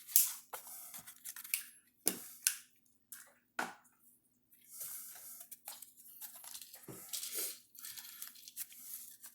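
Paper scratch-off lottery tickets being handled and scratched: a series of short, sharp rasping strokes, then longer stretches of scraping and rustling.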